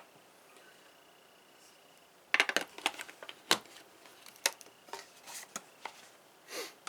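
Metal hand tools being handled: a run of irregular sharp clicks and clinks starting a couple of seconds in, after a quiet stretch.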